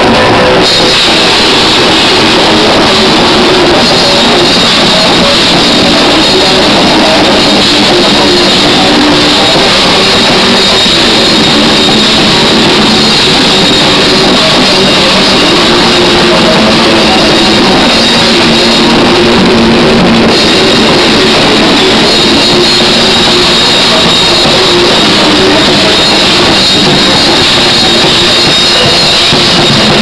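Metalcore band playing live without vocals: drum kit with distorted electric guitars and bass. The recording is loud and overloaded, the camera microphone distorting the sound.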